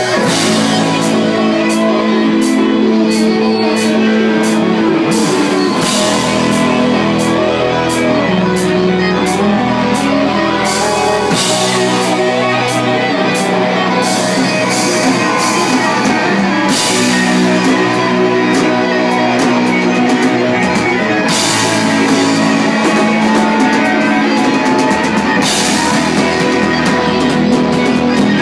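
Live rock band playing loud: electric guitars over a drum kit with frequent cymbal hits.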